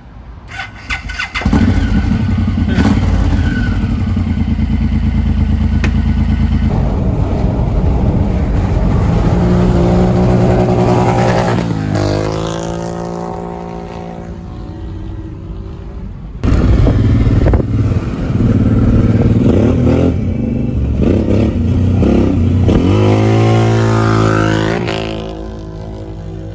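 Motorcycle engine running hard, its pitch climbing as it accelerates about midway and again near the end, with an abrupt jump in sound about two-thirds of the way through.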